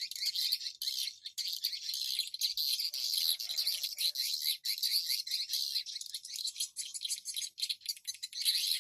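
Edible-nest swiftlets twittering: a dense, unbroken mass of quick, high chirps.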